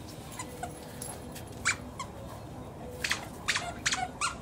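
Dogs at play: short, sharp, high-pitched yips and squeaks, one a little under two seconds in and then several in quick succession near the end.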